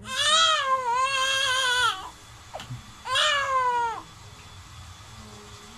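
Newborn baby crying: two long wavering wails, the first about two seconds long, the second, shorter, about three seconds in.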